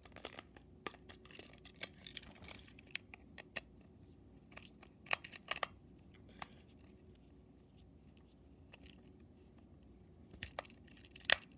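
Small screwdriver working the screw of a plastic battery cover on a motorized toy train engine, with scattered clicks and scrapes of plastic being handled. The clicks are busiest in the first half and again near the end.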